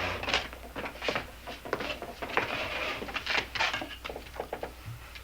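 Tableware clatter: dishes and utensils set down and handled, a string of small irregular knocks and scrapes.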